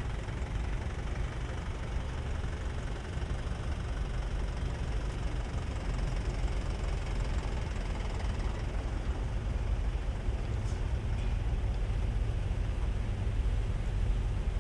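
Diesel truck engine idling steadily, a continuous low-pitched running sound.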